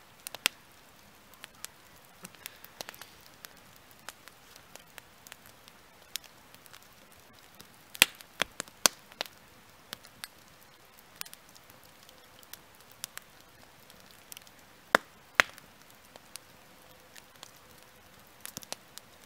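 Small wood fire crackling, with sharp irregular pops and snaps, a few louder cracks clustered about eight seconds in and again near fifteen seconds.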